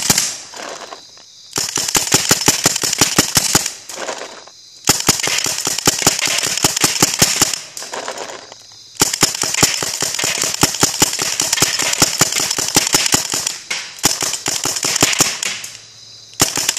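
Paintball gun firing rapid strings of shots in bursts of a few seconds, with short pauses between bursts.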